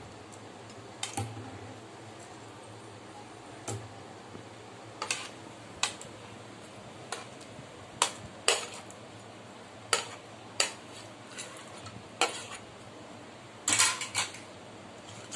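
A steel spoon clinking and scraping against a plate and a stainless steel bowl as raw chicken pieces are pushed off the plate into the marinade: irregular sharp clinks about once a second, with a louder cluster near the end.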